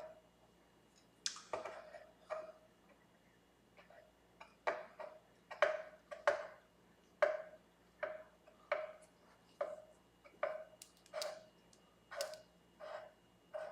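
Sandpaper on a levelling block rubbed in steady back-and-forth strokes over the guitar's frets, about one and a half strokes a second, each stroke a short scrape with a light ring. This is fret levelling, taking down high frets marked with Sharpie.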